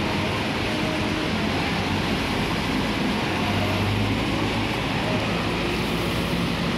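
Busy street traffic on a wet road: a tram, a diesel minibus and a double-decker bus drive past, with tyre noise and engines running. A low engine hum is strongest about four seconds in, as the minibus passes.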